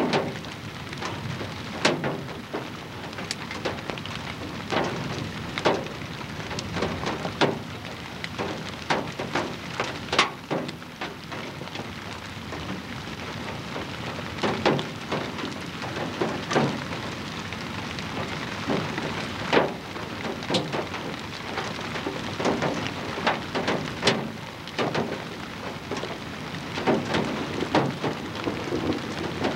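Outdoor storm wind and rain on a camcorder's microphone: a steady rushing hiss, broken every second or two by sharp taps and pops.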